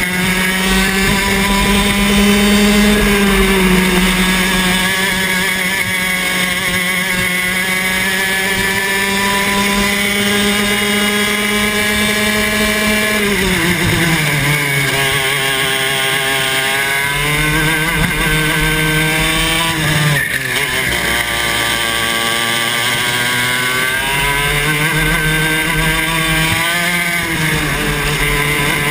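Club 100 TKM 115cc two-stroke kart engine heard from the driver's seat, its pitch held high at full throttle on the straight, then falling sharply about halfway through as the kart slows for a corner. It climbs again through the following bends, with a brief dip a little later and another drop and recovery near the end.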